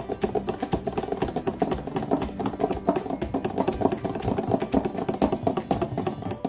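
Thick akara bean batter being whisked by hand in a glass bowl: rapid, regular clicking and slapping strokes of the utensil through the paste against the glass, beating air in so the batter rises and turns fluffy.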